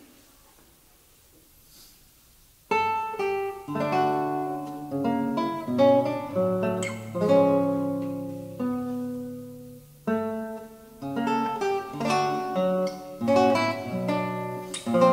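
Quiet room tone, then a classical guitar starts about two and a half seconds in with a slow introduction. It plays plucked chords and melody notes that ring and fade, with a short break a little past halfway.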